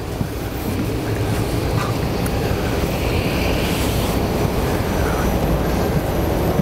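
Steady rushing air noise in the cabin of an Airbus A380 on the ground: the cabin air-conditioning and ventilation running.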